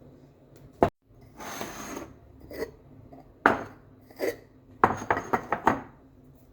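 Hard objects being handled: a sharp click, a brief rustle, then single knocks followed by a quick run of clinks and knocks.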